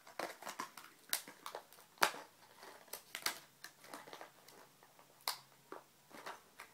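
Plastic blister package of a fishing crankbait being handled and picked at by hand: irregular crinkling and small plastic clicks, with a few sharper clicks now and then.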